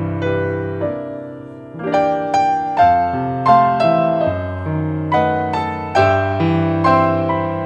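Slow piano music: single notes and chords struck about once or twice a second, each ringing and fading.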